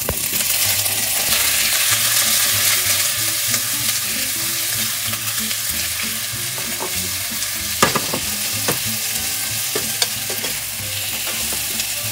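Black olives sizzling in hot olive oil with onion and garlic in a stainless steel frying pan, the sizzle rising sharply as the olives go in. The pan is stirred, with a few sharp knocks of the metal spoon about two-thirds of the way through.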